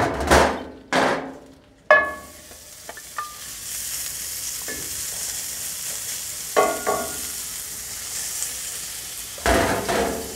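Diced pork belly tipped into a hot cast iron skillet starts sizzling about three seconds in and keeps up a steady fry while a wooden spatula stirs it. A few sharp ringing clinks and scrapes come from the bowl and spatula against the pan.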